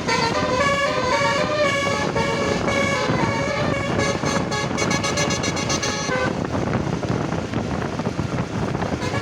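Basuri multi-tone bus horn playing a 'telolet' tune, notes stepping up and down, turning to fast pulsing repeats before cutting off about six seconds in. Engine and road noise follow.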